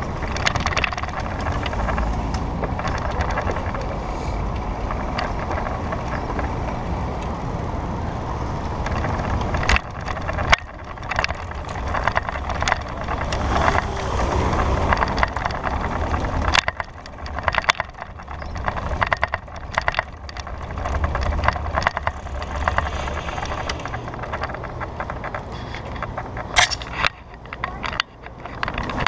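Bicycle ride along a city street heard from the bike-mounted camera: a steady rush of wind and tyre noise. From about halfway through come many sharp clicks and rattles as the bike rolls over rough asphalt.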